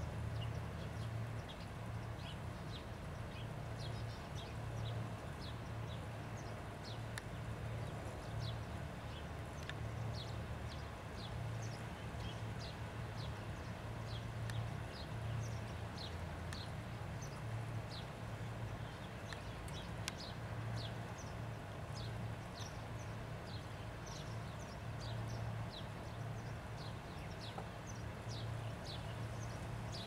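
Green bee-eaters calling: short, high chirps scattered irregularly and sometimes coming several a second. A steady low hum runs underneath.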